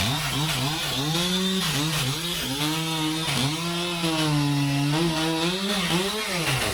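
A chainsaw running, its engine pitch rising and falling repeatedly as the throttle and cutting load change.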